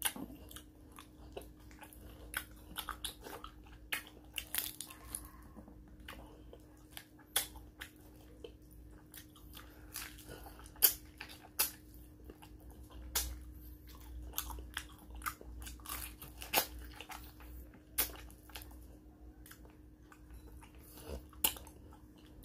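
Close-up eating by hand: wet lip smacks, finger sucking and chewing of crab and fried fish, heard as many sharp, irregular clicks.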